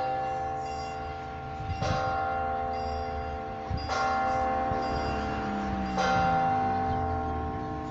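Large church bell tolling slowly, four strokes about two seconds apart, each stroke ringing on into the next.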